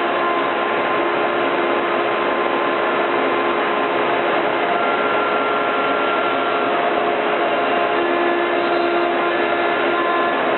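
CNC router with a 1/4-inch bit cutting MDF: a loud, steady cutting noise and motor whine, with a few whine tones shifting as the bit moves through the cut.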